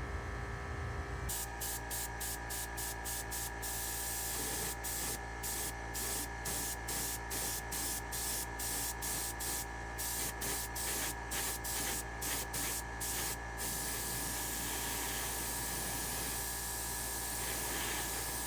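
Airbrush spraying paint in short trigger bursts, two to four a second, then spraying steadily for the last few seconds. A steady hum runs underneath.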